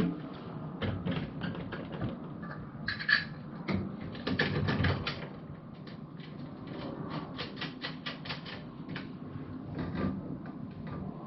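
Runs of quick, sharp clicking from hand tools and hardware while casters are fitted to a steel tool cabinet, with a few louder knocks about three and five seconds in.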